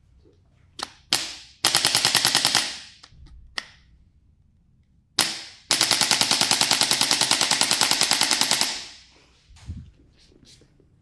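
Handheld electric percussion device hammering on the body in rapid, even strokes, about a dozen a second: a run of about a second, then a longer run of about three seconds. A few single sharp clicks come before each run.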